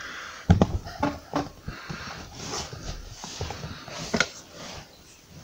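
A few sharp knocks and some scratchy scraping as wood and a tool are handled at a cupboard frame. The loudest knock is about half a second in, two more follow within the next second, and another comes near the end.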